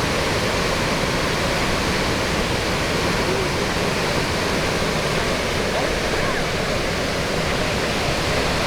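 Steady rushing of a large waterfall at Iguazú Falls, heavy water falling without letup.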